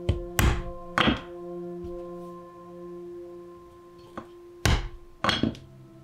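Hard mallet strikes in leatherwork: two heavy knocks in the first second or so, a light tap, then three more heavy knocks between about four and a half and five and a half seconds in. Background music with steady held notes runs underneath.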